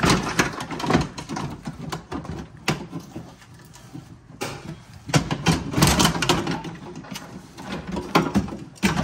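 A new window regulator's metal rails and cable assembly clattering, knocking and scraping against the inside of a Ford Expedition's front door shell as it is worked into place, in irregular bursts with a quieter stretch about a third of the way through.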